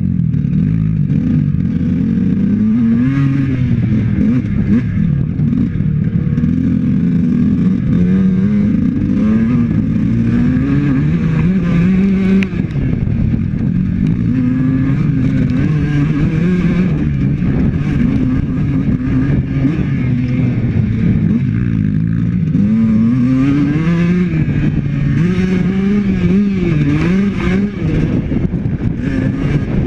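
Honda CR125 two-stroke dirt bike engine being ridden hard, the note rising and falling continuously as the throttle is worked and gears change.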